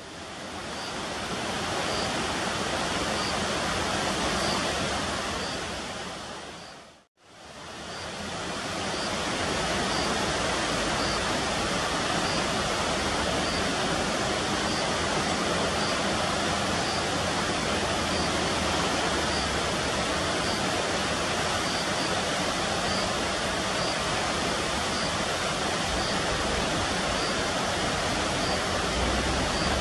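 Steady rush of a swollen, muddy river: an even wash of water noise that fades out and back in about seven seconds in.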